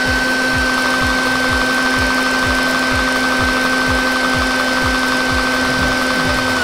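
Shop vac motor running at speed with a steady whine, its exhaust blowing on a small spinning turbine. The whine begins to drop at the very end as the vac is switched off.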